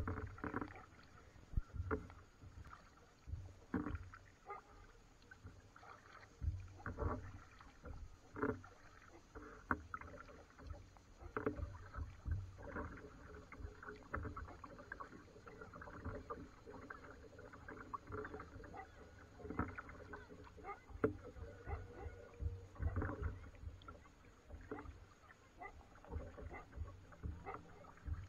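Kayak being paddled: the paddle blades dip and splash in the water every second or two, some strokes with a low thud.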